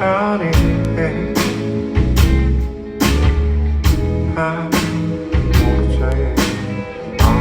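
Live band playing a slow groove: a drum kit keeps a steady beat with a hit about every 0.8 seconds, over electric bass and guitar.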